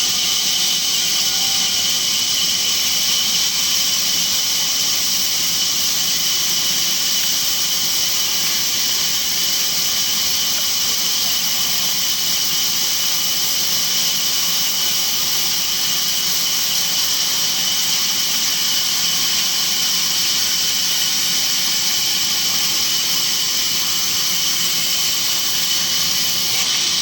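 Sawmill saw running steadily and cutting wood, a continuous high hissing whine with no breaks.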